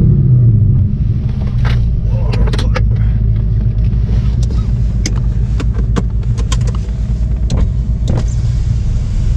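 Straight-piped Ford GT's supercharged V8 idling with a deep, steady rumble, heard from inside the cabin; its revs drop back to idle in the first second. Light clicks and taps are scattered over it.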